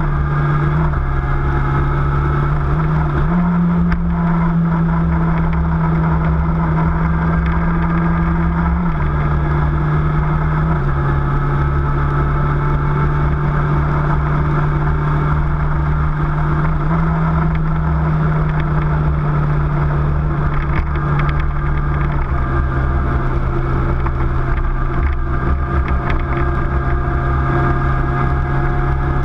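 Motorcycle engine running at cruising speed, its pitch stepping up and down a few times with throttle and gear changes, over steady wind and road rumble.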